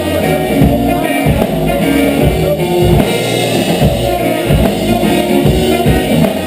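Dub reggae played by a band, with a heavy bass line and a steady drum beat.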